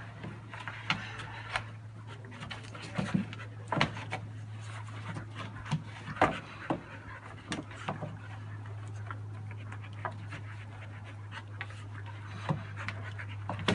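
Two dogs play-wrestling: panting, with many short, sharp snaps and scuffles at irregular intervals, thicker in the first half, over a steady low hum.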